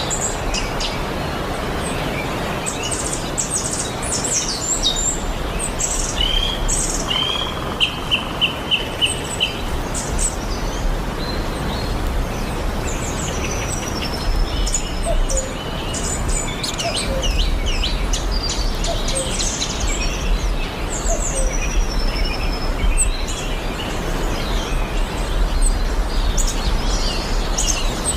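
Wild birds chirping and calling, many short high notes from several birds over a steady background hiss. About seven seconds in, one bird gives a quick run of about six repeated notes.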